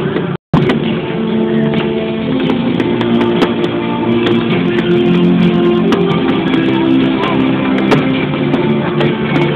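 Music with held instrumental notes, cut off for a moment about half a second in.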